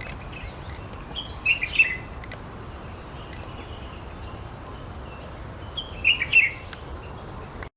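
Small birds chirping outdoors: short bursts of high chirps about a second and a half in and again around six seconds, with a fainter chirp between, over a steady background hiss.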